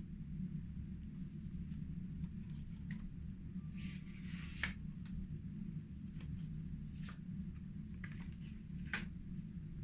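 Soft rustling and scraping of paper with a few short clicks, over a steady low hum.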